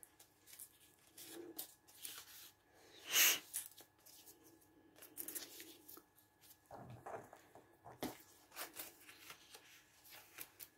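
Paper rustling and crinkling as hands handle and press paper pieces onto a journal page, with a louder rustle about three seconds in.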